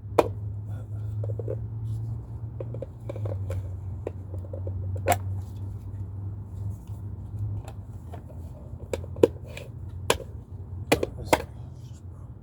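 Irregular sharp metal knocks and clicks of hand tools being handled, a few louder strikes near the middle and toward the end, over a steady low hum.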